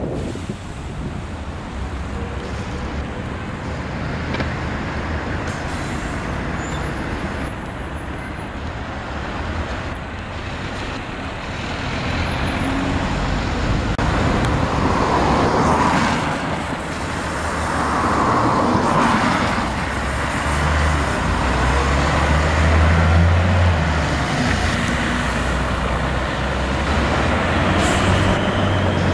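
Articulated city buses and cars driving past on a wet street: engines running with a low rumble and tyres hissing on wet asphalt. The sound grows louder in the second half as a bus passes close.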